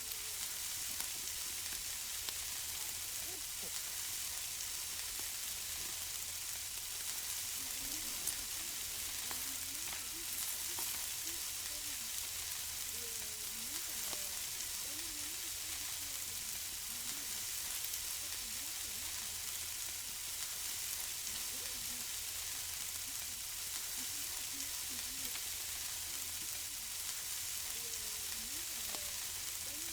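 Food sizzling on a barbecue grill: a steady frying hiss with scattered small pops and crackles.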